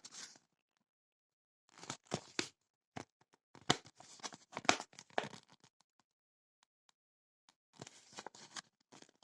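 Paper being handled, rustling and crinkling in three short bursts with small clicks, most likely the pages of the torque wrench's instruction manual.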